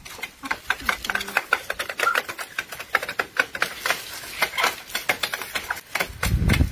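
A dog and chickens eating raw rice off a corrugated roofing sheet: a quick, irregular patter of sharp clicks and crunches from pecking beaks and chewing.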